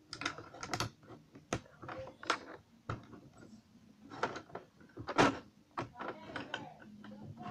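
Plastic Lego bricks clicking as they are handled and pressed together: a series of irregular sharp clicks, the loudest about five seconds in.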